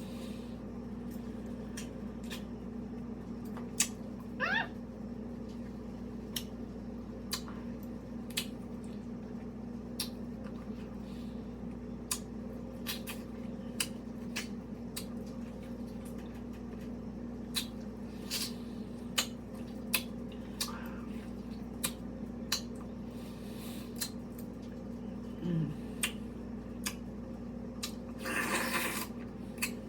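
Close-up mouth sounds of eating a mango: scattered wet clicks and smacks, over a steady low hum. A brief squeak falls in pitch about four seconds in.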